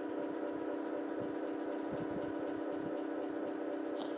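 Steady machine-like hum made of several steady low tones, with faint room noise.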